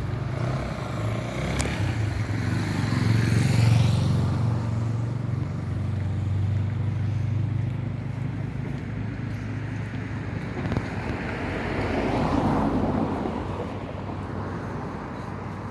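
Motor vehicle engine running with a low steady drone, swelling louder twice: about three to four seconds in and again about twelve seconds in.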